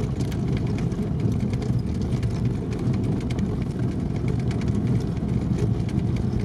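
In-cabin sound of a ZAZ-968M driving over a rutted snowy track. Its rear-mounted air-cooled V4 runs steadily, mixed with road noise and frequent small knocks and rattles from the car as it rides the ruts.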